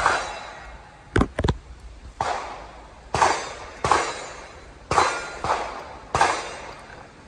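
A string of gunshots, about one a second, each trailing off in a short echo, with two quicker, sharper cracks close together about a second in.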